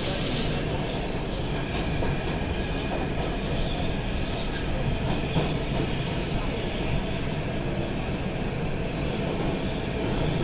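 New York City subway trains running at speed side by side on parallel tracks, heard from inside one car: a steady rumble of wheels on rail with clatter, and a faint steady high tone from about two seconds in.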